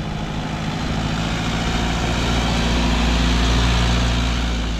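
Kia K2500 light pickup truck's diesel engine running as the truck drives up and passes close by, growing louder and then fading near the end.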